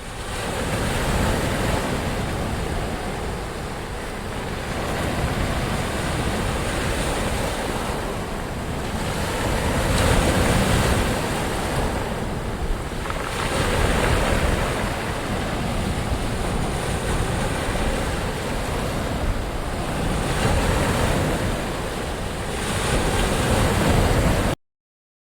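Ocean surf: waves breaking and washing in, a steady rush of water that swells and eases every few seconds. It cuts off abruptly near the end.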